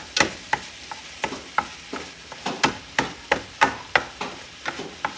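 A silicone spatula chopping and stirring ground beef in a nonstick skillet, knocking and scraping against the pan about three times a second.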